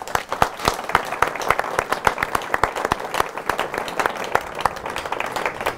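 A small group applauding: a dense patter of hand claps that dies away near the end.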